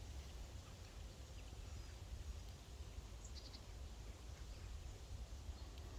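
A few faint, short, high chirps from small finches, over a steady low wind rumble on the microphone.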